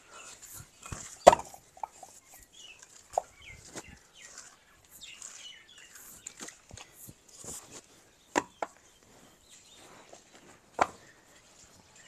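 Birds chirping faintly throughout, broken by a few short sharp sounds, the loudest about a second in and two more close together past the middle.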